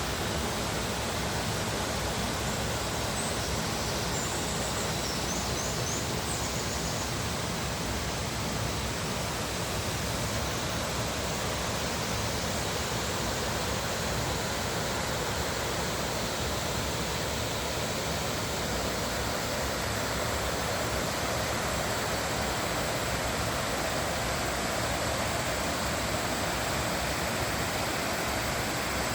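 Steady rushing of a stream or river, flowing water with no break or change.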